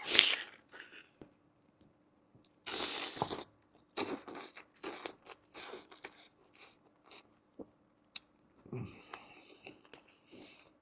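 A person chewing and biting chewy boiled beef kidney close to the microphone: irregular wet mouth noises with short pauses between them.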